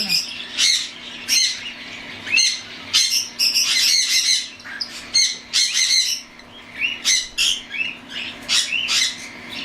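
Young cockatiel chicks, 7 to 9 weeks old, calling again and again with short harsh squawks and chirps, about two a second.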